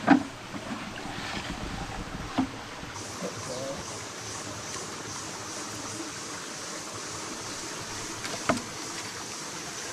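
Steady rush of running stream water, broken by three sharp knocks: the loudest right at the start, another about two and a half seconds in, and a last one about eight and a half seconds in.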